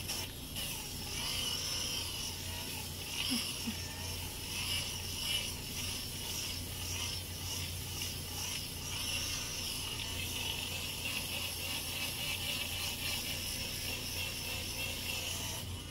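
Hurricane cordless foot drill running, its sanding pad abrading hard skin from the heel to remove callus. A steady motor hum with a high whine that rises and falls slightly as the pad works.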